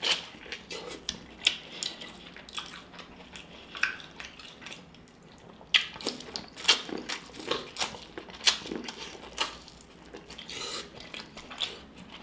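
Close-up wet eating sounds of biting into and sucking on a sauce-soaked corn on the cob: irregular mouth smacks and sharp clicks, more frequent in the second half.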